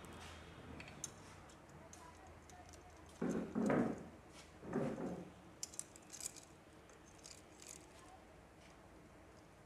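Light metallic clicks and clinks of hand tools and small engine parts being handled during motorcycle top-end work, with two louder, duller handling sounds a little after three seconds and near five seconds.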